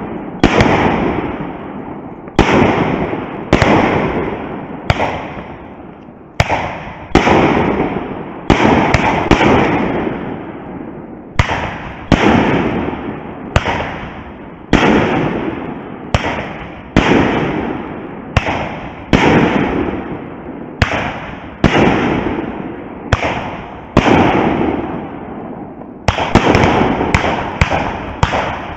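Fireworks display: a steady run of aerial shell bursts, loud bangs about one a second, each followed by a fading rumbling tail. The bursts come faster near the end.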